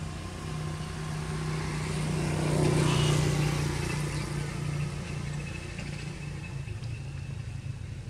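A motor vehicle passing by: a steady engine hum that swells to its loudest about three seconds in, then fades away.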